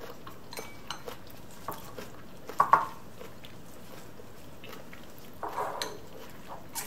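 Wooden chopsticks tossing salad in a ceramic bowl: scattered light clicks and taps against the bowl, with two sharper knocks a little before three seconds in and a short clatter about five and a half seconds in.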